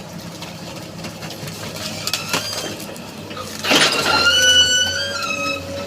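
Excavator running while loading wooden pallets: the engine holds a steady low hum under a few knocks, then a loud squeal starts a little past halfway and holds for about two seconds.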